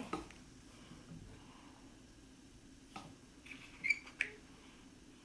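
A few small plastic clicks and a brief high squeak, about three to four seconds in, as a miniature lip balm is handled and opened, over quiet room tone.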